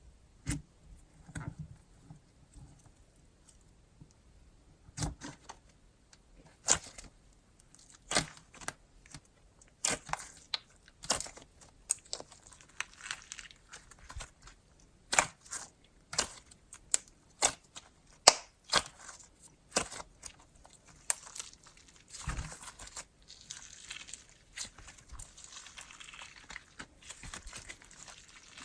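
Butter-icy hybrid slime being kneaded and stretched by hand, with irregular sharp clicks, pops and tearing crackles, busiest near the end.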